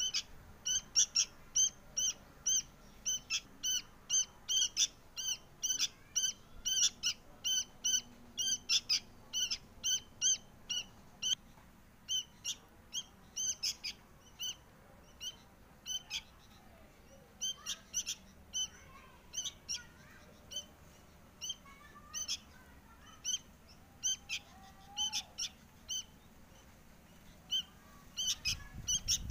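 Fledgling sooty-headed bulbul begging to be fed: short high calls repeated about three times a second, thinning out to scattered calls after about twelve seconds.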